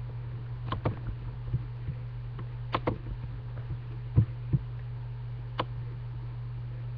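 A steady low hum of recording noise, with a handful of soft clicks and knocks, several in quick pairs, scattered through it.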